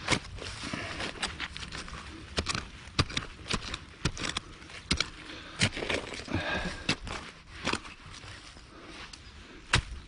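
A run of irregular sharp knocks and scrapes, about fifteen in ten seconds, with rustling between them and a louder scratchy stretch a little past the middle.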